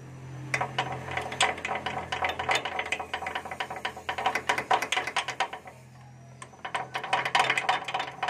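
Hand ratchet wrench clicking in quick runs as it works the bolt of a steering shaft cross joint (universal joint). The clicking comes in two spells with a short pause about two-thirds through. The long-unopened joint is stiff and stuck.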